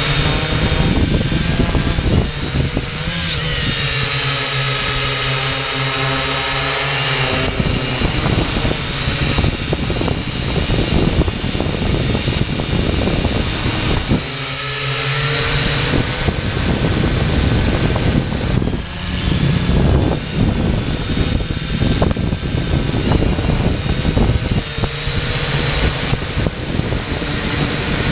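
Xtreem Fly Eye drone's electric motors and propellers heard from its onboard camera: a high whine that rises and falls in pitch as the motors speed up and slow down while the drone manoeuvres, over a heavy rush of wind buffeting the microphone.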